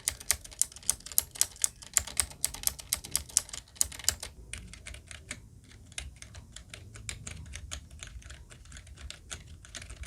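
Rapid key presses on an A4tech Bloody B2278 mechanical keyboard. For about the first four seconds the clicks are loud and sharp, the clicky blue-switch sound of its light-strike optical keys. After that the presses carry on much quieter, the softer sound of its ordinary keys.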